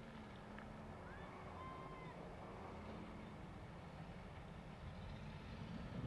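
Diesel engines of a hydraulic excavator and a wheel loader at work, a faint steady low drone.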